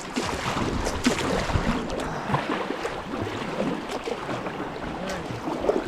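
Whitewater river rushing and splashing around a kayak, a steady rush of moving water with a few brief sharp splashes.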